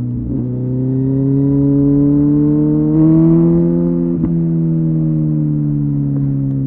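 Kawasaki ZZR 1400 inline-four engine pulling under load through a Delkevic exhaust. Its pitch rises gently over the first few seconds, dips briefly about four seconds in, then holds steady.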